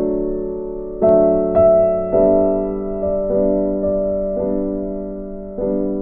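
Background music: slow, soft piano chords, each struck and left to ring and fade, with a new chord every second or so.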